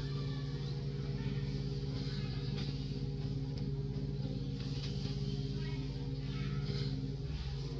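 A motor running steadily with an even, low hum, with faint rustling of dry leaves above it.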